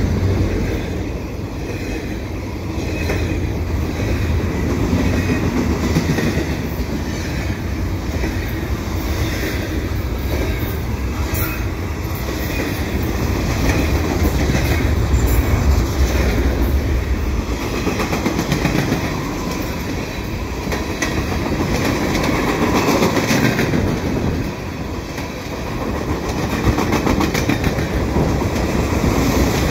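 Freight cars rolling past close by: a steady rumble of steel wheels on rail with repeated clicks as the wheels cross rail joints. Double-stack container well cars give way to boxcars.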